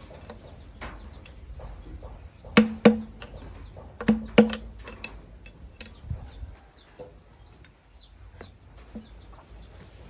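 Carving chisel struck with a mallet: two pairs of sharp wooden knocks, the pairs about a second and a half apart, with fainter taps and small chirps between.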